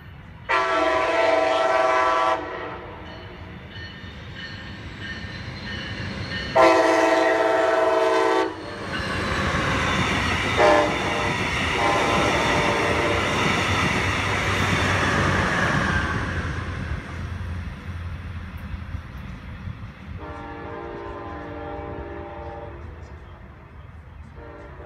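Brightline passenger train, led by a Siemens Charger diesel-electric locomotive, approaching and sounding two long horn blasts. It passes with a rising, then fading rumble and clatter of wheels on rail and a brief horn note. A quieter horn blast follows near the end.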